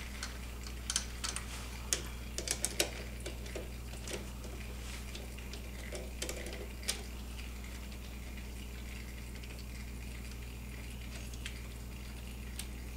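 Light metallic clicks and taps of a screwdriver and small hardware at a snowmobile battery terminal, scattered through the first half, over a steady low hum.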